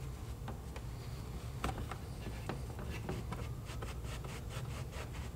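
Microfiber towel rubbing the plastic reflector recess of a car's front bumper, wiping it down with alcohol: a scratchy rubbing with many small clicks, more frequent in the second half, over a low steady hum.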